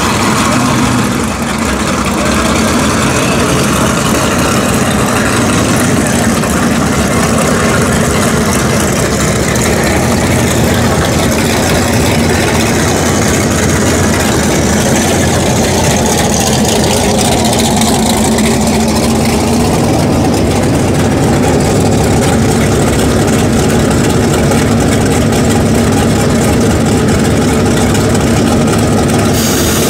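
Drag cars' engines idling in a loud, steady rumble. Near the end a sharp hiss starts as the blue first-generation Camaro purges its nitrous system.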